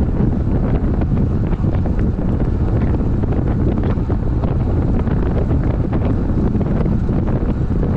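Wind rushing over the microphone of a road cyclist riding at about 35 km/h: a loud, steady, deep rumble.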